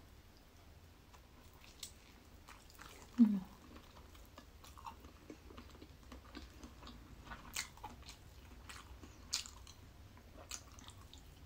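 Close-up chewing and biting of tofu-based mock chicken, with soft wet mouth clicks and smacks scattered throughout. A brief low hum from the eater comes about three seconds in.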